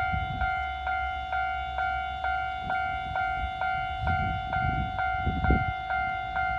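Japanese level-crossing alarm bell ringing in its steady two-tone clang, about two strikes a second, with low rumbling beneath it.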